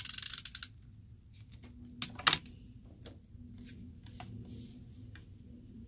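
Tombow adhesive dot tape runner being drawn along a strip, a fast ratcheting rattle that stops less than a second in. Two sharp clicks about two seconds in are the loudest sound, followed by light tapping and rustling of acetate and card being handled.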